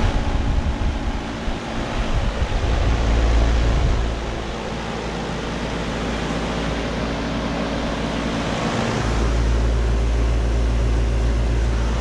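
Carrier Comfort heat pump outdoor unit running in heat mode: the condenser fan blowing with a steady compressor hum underneath. Low rumbling of moving air on the microphone comes and goes, strongest in the first few seconds and again near the end.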